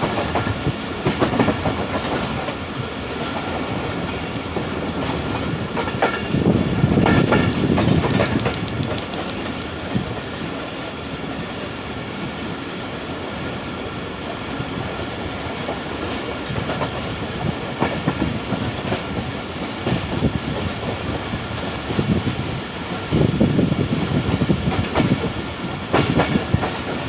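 Passenger train running along the track: a steady rumble of the wheels, with a clickety-clack as they pass over rail joints. It grows louder for a few seconds about a quarter of the way through and again near the end.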